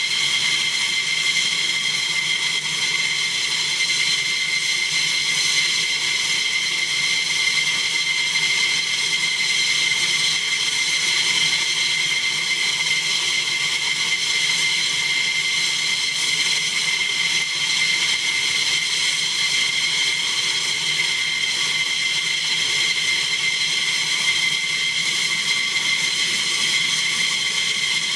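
F-15E Strike Eagle's twin Pratt & Whitney F100 turbofans running at idle: a steady, high-pitched jet whine over a constant hiss.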